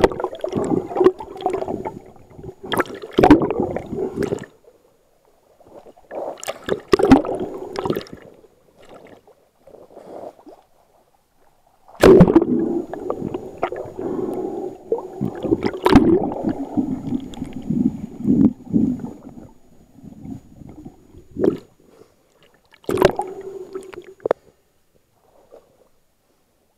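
Muffled water sloshing and gurgling around an action camera's waterproof housing while it is held underwater. It comes in bursts of a second to a few seconds with quiet gaps between, and sharp knocks against the housing now and then.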